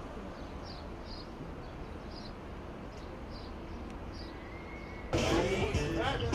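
Steady outdoor background rumble with faint, high, short chirps repeating about once or twice a second. About five seconds in, louder music and voices cut in suddenly.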